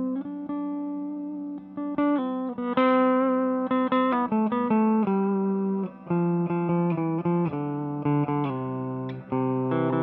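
Electric guitar, a Gibson Les Paul Custom, playing through a Hologram Dream Sequence pedal. The pedal's sequencer chops the sustained guitar into a rhythmic pattern of stepped, changing pitches, with short breaks between phrases.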